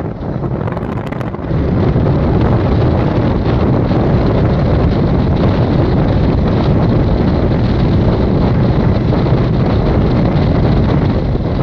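Wind rushing over the microphone held out of a moving train, over the steady running rumble of the train on the track; it gets louder about one and a half seconds in.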